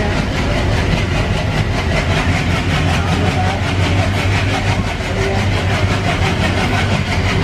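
ALCO WDG-3A diesel locomotive's turbocharged 16-cylinder engine chugging steadily under load, heard from the train behind it, mixed with the rolling noise of the coaches' wheels on the rails.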